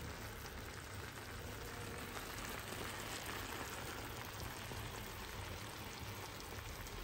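Vegetable tagine simmering in an unglazed clay tagine dish: a steady soft crackling and bubbling of the sauce.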